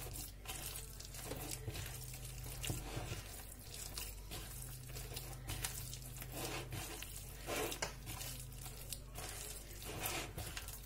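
Hands squeezing and kneading soft semolina dough mixed with an onion, olive and caper filling in a plastic bowl, in irregular short bursts over a faint steady low hum.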